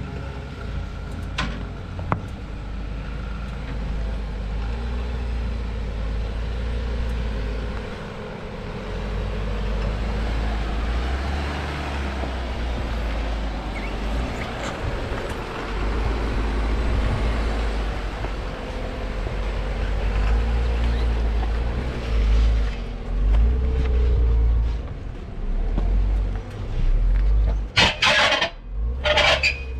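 Off-road vehicle engine running at low speed as it crawls a rocky trail, its low drone rising and falling with the throttle. There are a couple of light knocks early on and two loud, short bursts of noise near the end.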